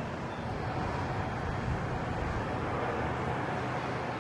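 Steady rumbling background noise with a faint low hum and no distinct events.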